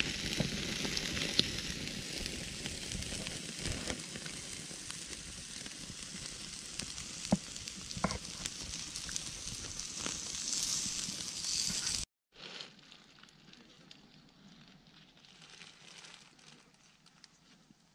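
Open wood fire burning with sharp crackles, and whole tandoori chicken sizzling in the pot over the flames. It cuts off abruptly about twelve seconds in, leaving only a faint background hiss.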